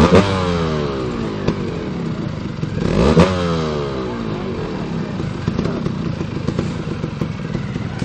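Trial motorcycle engine blipped hard twice, about three seconds apart, the revs falling away after each blip.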